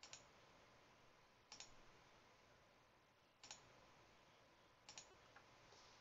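Computer mouse button clicking four times, about one and a half to two seconds apart, faint against a quiet room.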